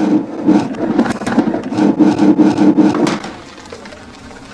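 Legs of a white metal-framed chair scraping across the floor as it is dragged: a loud, juddering scrape that stops about three seconds in.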